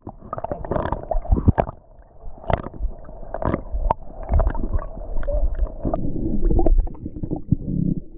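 Muffled underwater sound picked up by an action camera in its waterproof housing just after it goes under: a low rumble of water moving around the housing, with many irregular clicks and knocks.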